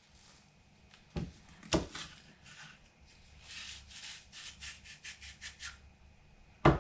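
Apple corer being twisted through a raw apple, giving a run of short rasping scrapes at about four a second. A few sharp knocks against a wooden cutting board come with it, twice about a second in and loudest near the end.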